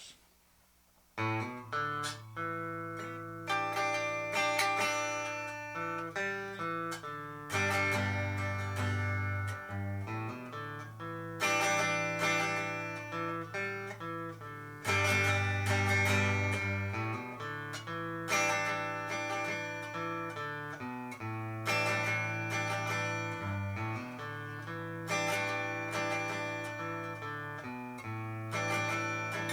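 Squier 40th Anniversary Telecaster with both pickups selected, played straight into a Sound City Master Lead 50 amplifier and Schroeder 12PL cabinet with no reverb or effects. It plays a chord-based piece of ringing chords over a bass line, starting about a second in.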